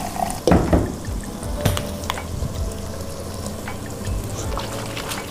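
Ground masala frying in oil in a clay pot, sizzling as it is stirred with a wooden spoon, with a few sharp knocks against the pot, the loudest about half a second in.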